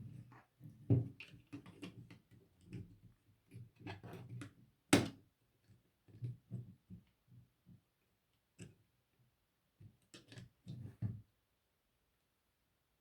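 Plastic LEGO bricks being handled and pressed together: an irregular series of small clicks and taps, the sharpest about five seconds in, stopping near the end.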